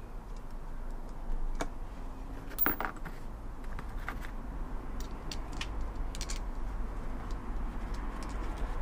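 Light metallic clicks and taps, irregular and a few seconds apart, as parts of a Bosch starter motor are handled and pressed together by hand during reassembly.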